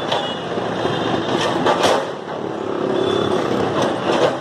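Backhoe loader's diesel engine running under load as its bucket scrapes at and breaks up concrete steps, with several sharp knocks and crunches of concrete.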